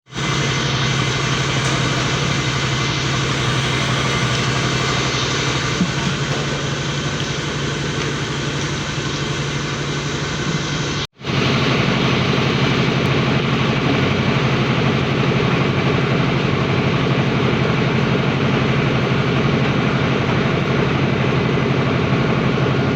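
Engine of road-surfacing machinery running steadily with a constant low drone. It cuts out for an instant about halfway, then carries on unchanged.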